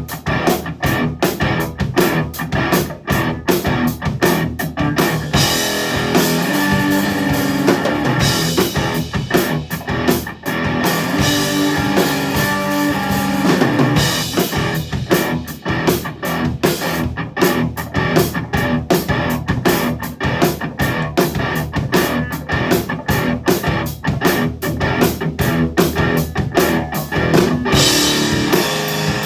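Music played on guitar and drum kit with a steady beat.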